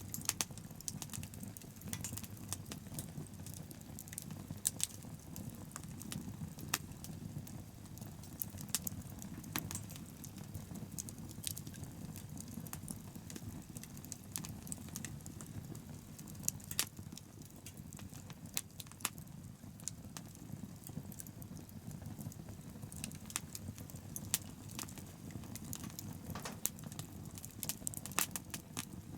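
Wood bonfire burning and crackling: frequent sharp pops and snaps at irregular intervals over a steady low rumble.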